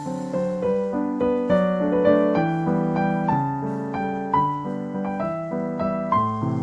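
Background piano music: a steady run of single struck notes, several a second, each ringing and fading.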